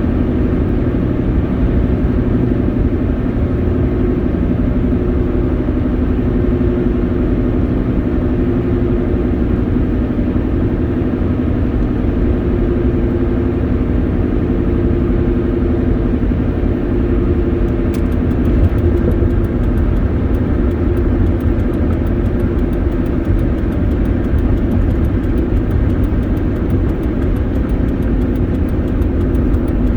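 Steady engine and road rumble inside a Ford F-150 pickup's cab while driving. A little past halfway, light rapid ticking joins it.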